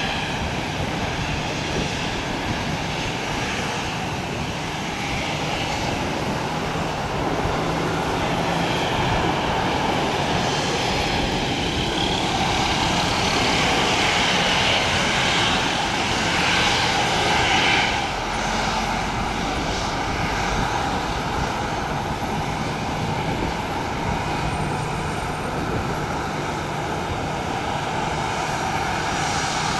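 Airbus A320-214 airliner's CFM56 jet engines running at low taxi power as it rolls past, with a steady whine. The sound swells to its loudest about two-thirds of the way through, then eases off.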